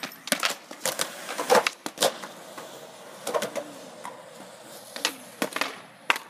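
Skateboards clacking on concrete: a series of sharp knocks and slaps as boards are popped, kicked and land on the pavement, with a board clattering away near the end.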